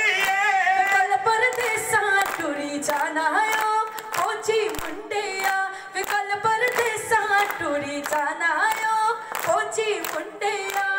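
A high voice singing a melismatic folk song through a loudspeaker system, with sharp handclaps keeping an even beat.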